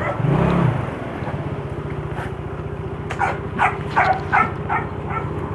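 Small motorcycle engine idling steadily while a dog gives a quick run of about six barks, starting about three seconds in.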